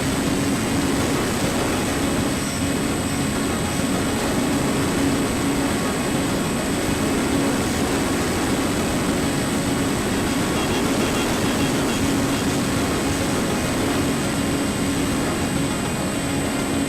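Small RC plane's electric motor and propeller droning at a steady pitch under wind rush, as picked up by a camera mounted on the plane.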